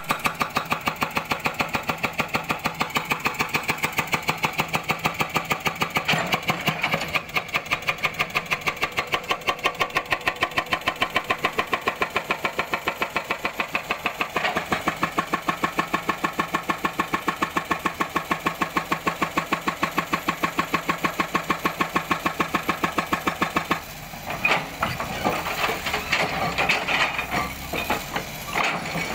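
Hydraulic breaker on a Cat excavator hammering rock in rapid, evenly spaced blows, with the excavator's engine running underneath. About 24 seconds in the hammering stops and gives way to irregular knocking and clattering of steel and rock as the chisel is lifted and repositioned.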